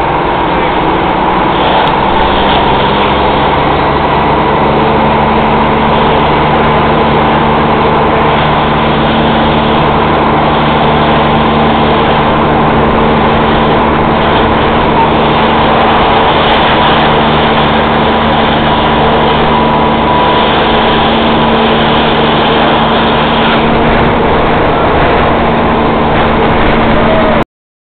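A steady engine drone under a loud rushing noise of a fire hose stream playing onto a burning car. The sound cuts off suddenly near the end.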